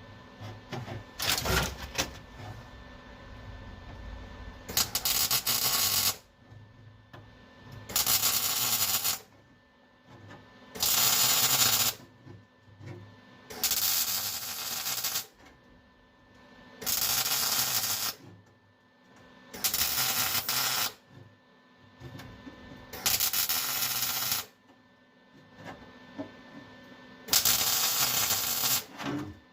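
Welder laying short stitch welds and tacks on thin sheet-metal floor patches: about eight crackling bursts, each a second or so long, with brief pauses between them.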